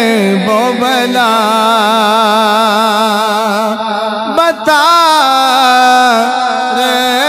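A man's solo voice singing an Urdu manqabat through a microphone, drawing out long held notes with a wavering, ornamented pitch. There is a short break for breath about four seconds in.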